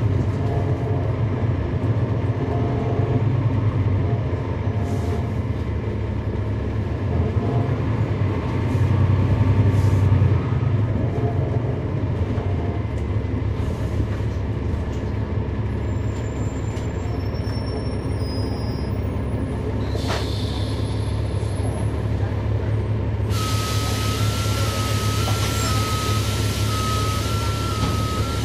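Cummins ISL9 diesel engine of a 2011 NABI 416.15 transit bus, heard from inside the cabin, running steadily; it is a little louder in the first ten seconds, then settles. Near the end a long hiss of air starts and carries on, with a faint tone stepping up and down under it.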